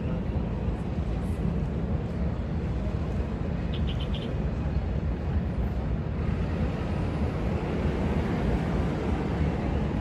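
Steady low rumble of harbourside ambience, the mixed hum of engines and wind, with a brief run of about five quick high ticks about four seconds in.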